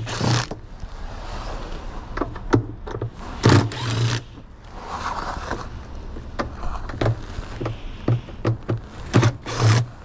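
Cordless drill driver running in short bursts as it backs screws out of a washing machine's plastic top panel, with clicks of bits and screws. Louder scraping rustles come at the start, about three and a half seconds in and near the end.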